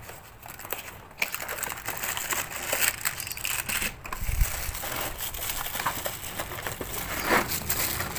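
Cardboard box and plastic bag packaging being handled and pulled apart: crinkling and rustling with many small clicks, starting about a second in, and a low bump about four seconds in.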